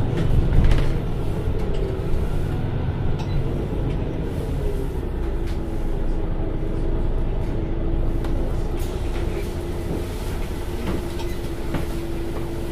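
MAN A21 Lion's City NL323 city bus running under way: a steady low rumble of engine and road with a held whine that comes in about four seconds in, and scattered clicks and rattles.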